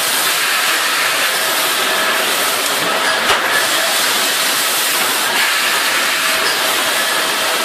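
Automatic sugar baling line running: conveyor belts and their gear motors give a steady, hissy machine noise with faint steady tones, and a light knock about three seconds in.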